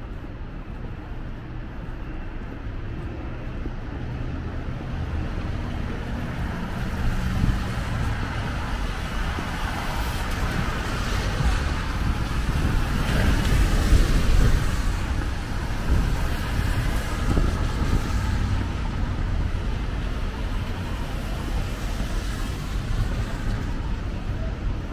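City street traffic on rain-wet roads: a steady rumble of engines and tyre hiss, swelling as a vehicle passes close about halfway through, then settling back.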